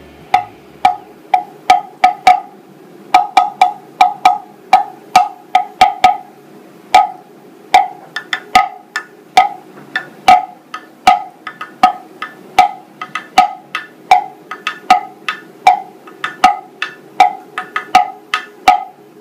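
3D-printed plastic cowbell struck repeatedly with a stick: short knocks, each with a brief ring at one pitch, about two a second in an uneven rhythm with some quick double strikes.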